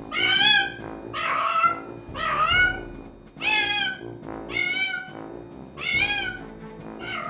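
A cat meowing over and over: six drawn-out meows, each about half a second long and about a second apart. Light background music plays underneath.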